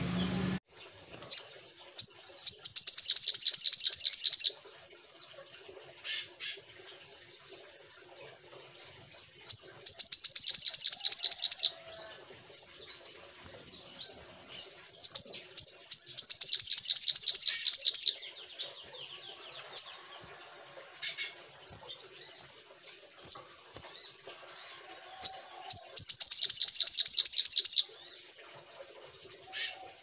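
Caged male olive-backed sunbird singing: four loud, rapid, high-pitched trills of about two seconds each, with short scattered chirps in between.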